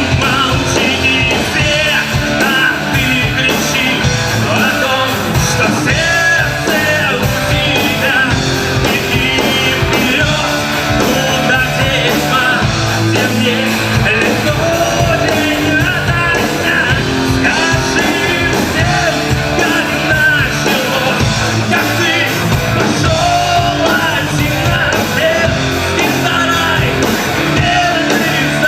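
Live rock band playing loudly and steadily, with a singer's voice over the band.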